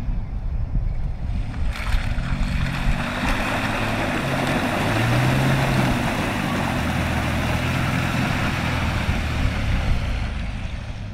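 Pickup truck driving through a muddy puddle: its engine pulls under load while the tyres churn and splash through the water for most of the stretch. The engine pitch briefly rises about halfway through.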